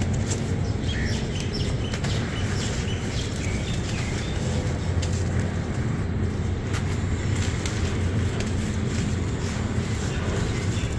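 Dry stony sand-cement crumbles crushed and sifted by hand, grit crackling and pattering as it falls, over a steady low rumble. A few faint bird chirps about one to three seconds in.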